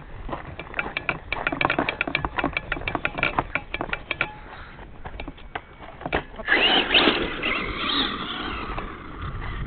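Quick crunching steps on sandy ground for the first few seconds, then a radio-controlled truck's motor whines, its pitch rising and falling as it is throttled, from about six and a half seconds in.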